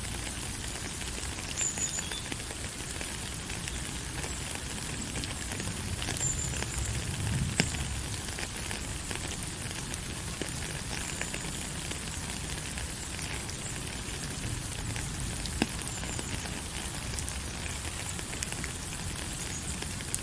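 Steady rain falling: an even hiss with scattered sharp drop impacts, one a little louder about halfway through.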